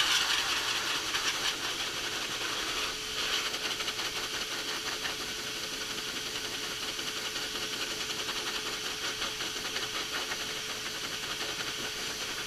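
High-velocity pet dryer blowing air through its hose and nozzle onto a dog's coat: a steady rushing hiss over a constant motor tone, swelling briefly once or twice as the nozzle moves.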